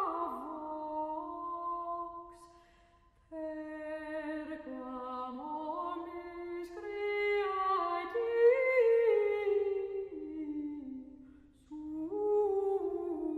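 A voice humming a slow, wordless melody of held notes that step up and down, without accompaniment, breaking off twice briefly.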